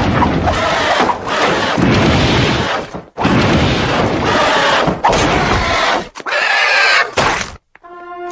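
Cartoon fire-breathing sound effects: a loud rushing blast of flame in several bursts of one to two seconds, with short breaks between them, cutting off sharply about seven and a half seconds in.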